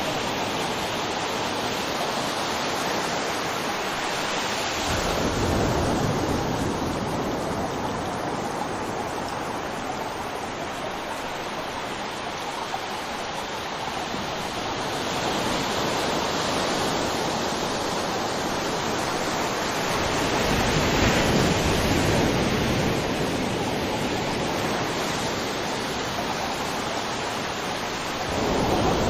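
River water rushing steadily, a continuous noise that swells louder a few times, around five seconds in, past the twenty-second mark and near the end.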